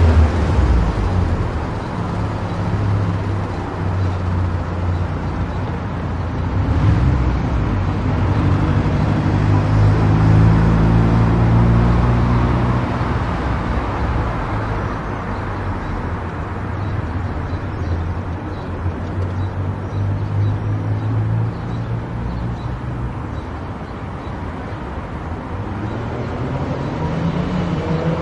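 Car driving on a road: steady engine hum and tyre noise, the engine note slowly rising and falling with speed.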